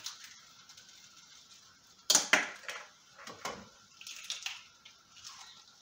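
Sharp knocks and clicks on a frying pan of cooked vegetable filling, four louder ones about two to three and a half seconds in, then a few lighter ones.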